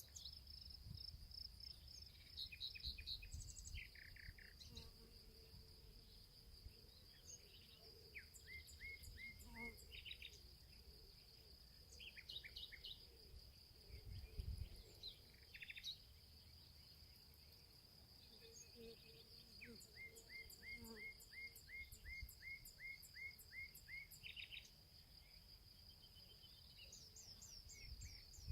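Quiet outdoor soundscape: a steady high-pitched insect trill, with birds chirping in quick runs of short repeated notes and a brief low rumble about halfway.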